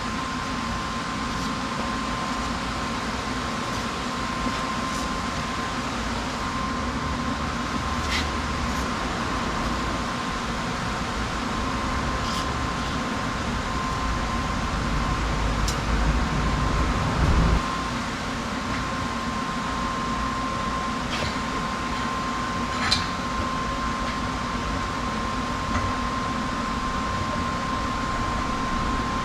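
Steady mechanical hum with a thin, high, steady tone, like a fan or motor running, with a few faint light clicks and a low rumble swelling briefly about halfway through.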